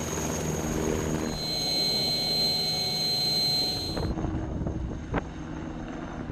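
Helicopter running with a steady engine hum. A high, steady turbine whine comes in about a second in and cuts off abruptly around four seconds, leaving a quieter rumble with a few clicks.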